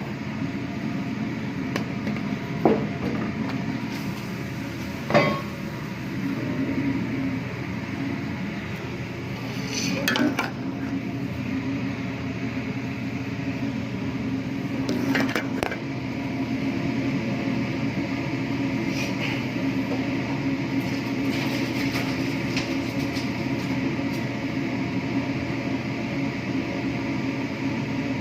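Clanks and knocks of fish and a utensil against a large metal cooking pot, a handful of separate strikes spread out over the stretch, over a steady kitchen hum.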